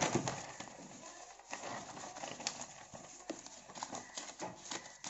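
Paper pages of a ruled answer booklet being turned and handled: soft rustling with scattered light ticks and taps at irregular intervals.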